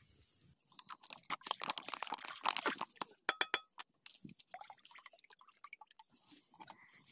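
Dense crackling and popping as cooking oil is poured into a hot iron kadai over a wood fire, loudest about two and a half seconds in. A few sharp metallic clinks follow, then scattered crackles.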